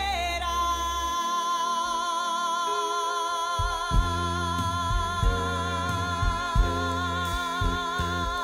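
Live band music: a long, high held note with vibrato over keyboard. About three and a half seconds in, bass and drums come in with a few accented hits.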